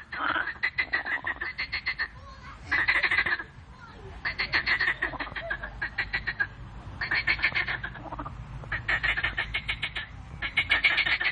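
A chorus of frogs giving their breeding calls. Bursts of rapid pulsed calls, each about a second long at roughly ten pulses a second, come one after another with short gaps.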